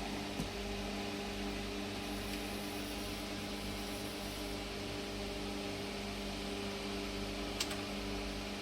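A steady machine hum with a few fixed tones, with a faint click just after the start and a sharper click near the end.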